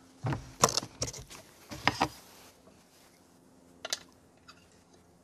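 Metal clinks and knocks from hand work on a bare aluminum Honda M2S4 transmission case: a quick run of about five sharp clicks in the first two seconds, then one more about four seconds in.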